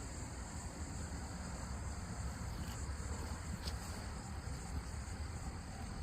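Steady chorus of crickets or other night insects, a constant high trilling, over a low rumble, with one faint click a little past the middle.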